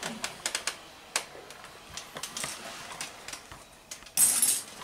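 Scattered light clicks and taps from hands handling metal parts on a stationary hit-and-miss engine, with one short, louder scraping rustle near the end.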